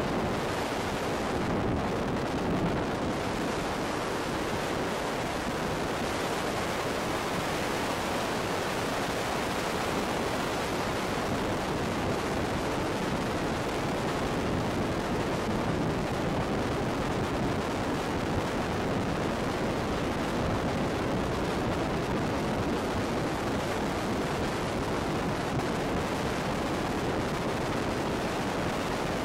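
Rush of freefall wind over the camera's microphone during a skydive: a steady, even noise with no breaks.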